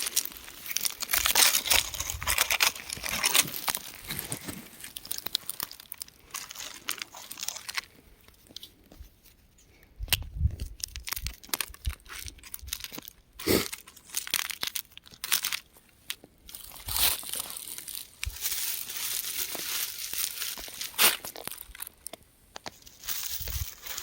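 Rock crumbling and breaking apart, an irregular crunching and crackling with sharp clicks, easing to a quieter stretch about a third of the way in before picking up again.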